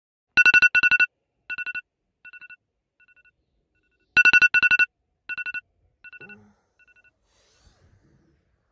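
Phone alarm tone beeping: clusters of rapid two-pitch beeps that fade away in steps like an echo, the phrase sounding twice about four seconds apart.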